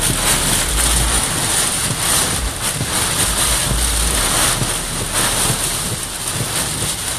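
Storm wind rushing around a vehicle, a loud steady roar of noise with low gusts buffeting the microphone twice.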